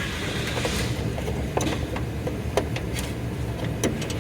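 Scattered light clicks and plastic rattles of a headlight bulb's wiring connector and socket being handled, over a steady low hum.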